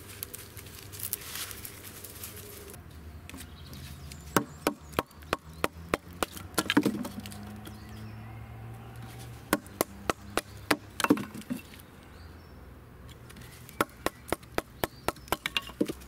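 Pine being split into thin kindling sticks with a knife against a wooden log, giving sharp cracks and knocks in several quick runs after a quiet first few seconds.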